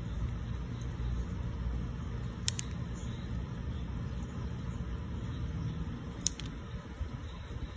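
Wind buffeting the microphone as a steady low rumble, broken twice by a pair of short sharp clicks, about a third of the way in and again near the end.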